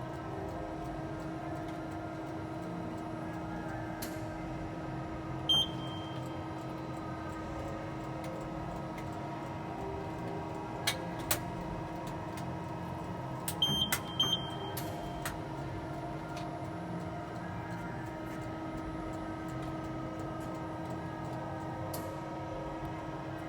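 Kia Turn 15 CNC lathe running with a steady hum. There are a few short high beeps about five seconds in and again around fourteen seconds, and a few sharp clicks in between.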